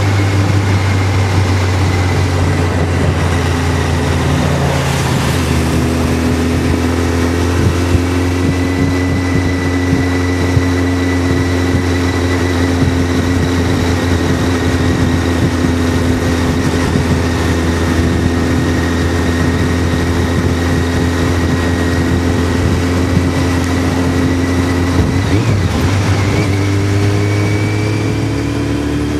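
Motorcycle engine running steadily at cruising speed, with a constant rush of road and wind noise. The engine note shifts about five seconds in and again near the end.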